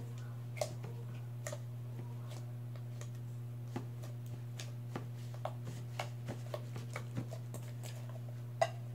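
Hands kneading a large mass of slime in a stainless steel bowl: scattered small squelches and clicks at an uneven pace, with a sharper click near the end, over a steady low hum.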